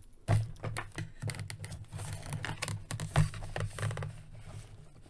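Hard plastic toy parts and cardboard packaging being handled as a plastic mech-suit armor piece is worked out of its box tray: irregular clicks, scrapes and rustles, the sharpest about a third of a second in and again a little after three seconds in.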